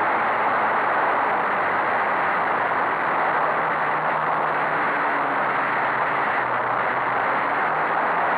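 Race car driving at speed, heard from a camera mounted on the bonnet: a steady rush of wind and road noise over the car's engine, which sits faint and low beneath it, its pitch shifting slightly.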